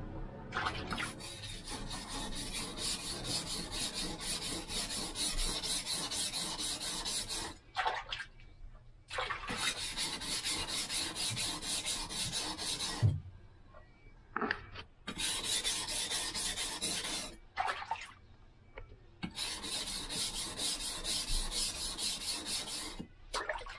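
Steel kitchen-knife blade being hand-sharpened on a whetstone for its final edge: rapid back-and-forth scraping strokes in four runs, with short pauses between.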